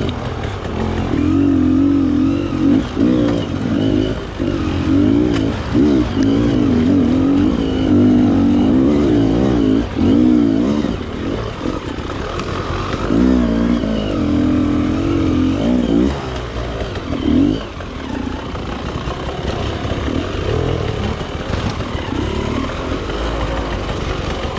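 Enduro motorcycle engine being ridden off-road, its revs rising and falling constantly with the throttle, with short drops off the throttle scattered through.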